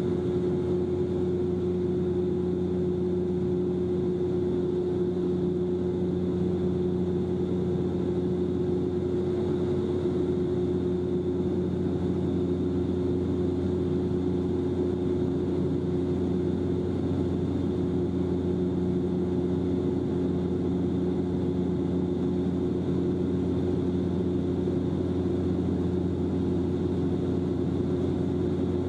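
Cabin drone of a Bombardier Dash-8 Q400's twin turboprop engines and six-bladed propellers during the climb after take-off. It is a steady, loud hum made of several low tones, and a further tone joins about twelve seconds in.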